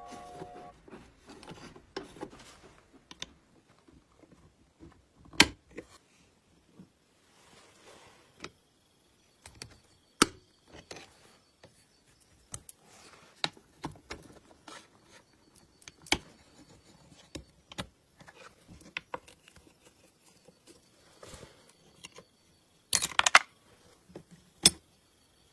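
Scattered clicks, taps and light metallic clinks of small sewing-machine parts and tools being handled, irregular, with a louder burst of rattling clinks near the end.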